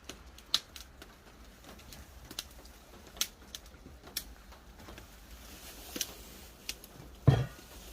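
Wood campfire crackling: sharp, irregular pops and snaps, a few a second. A louder, deeper thud comes near the end.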